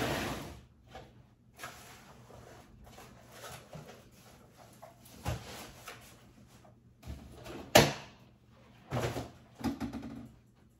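Household things being handled and moved: a sliding scrape at the start, then scattered knocks, the loudest a sharp knock about three-quarters through, and a few more bumps near the end.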